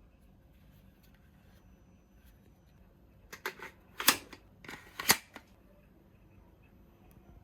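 A short run of sharp plastic clicks and clacks from a toy soft dart blaster being handled, with two louder clacks about a second apart.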